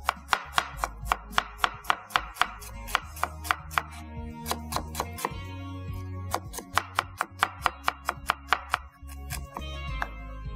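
Kitchen knife finely chopping a red onion on a wooden cutting board: quick, even strokes about four a second, in runs broken by short pauses. Background music plays underneath.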